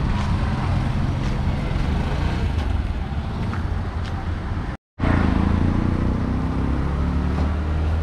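Street traffic with auto-rickshaw (tuk-tuk) and car engines running close by, a steady engine drone over general street noise. The sound cuts out for a split second about five seconds in.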